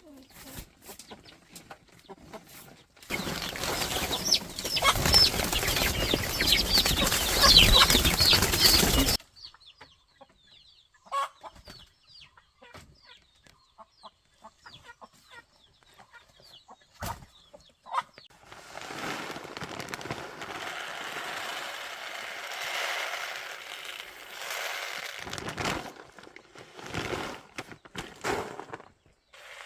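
Chickens clucking and squawking, with a loud burst of flapping or rustling lasting about six seconds near the start and a softer stretch of it later on.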